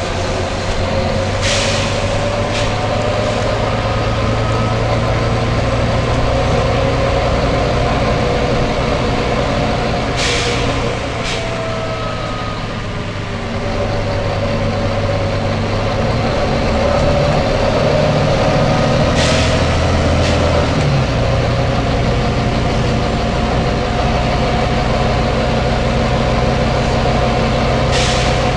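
Volvo B9TL bus's diesel engine running steadily while its air system lets out four short, sharp hisses about nine seconds apart, each followed by a shorter hiss about a second later.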